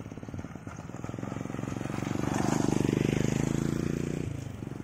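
A small motorcycle engine comes closer and passes nearby. It grows louder to a peak around the middle, then drops off sharply about four seconds in.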